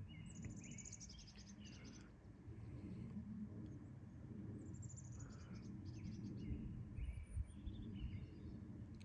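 A songbird singing two similar songs, each a quick run of high notes stepping down in pitch with shorter lower notes around it, over a faint low rumble with a few soft thumps near the end.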